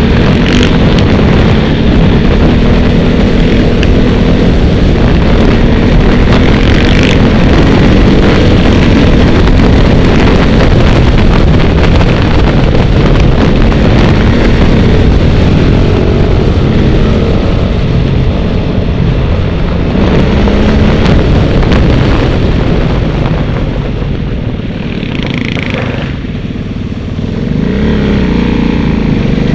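A motor vehicle's engine running loudly and steadily while driving, its pitch drifting up and down with the throttle. It eases off for a few seconds near the end, then picks up again.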